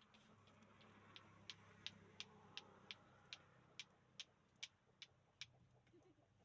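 Faint, fairly regular ticking, about three sharp ticks a second, over a low background hum.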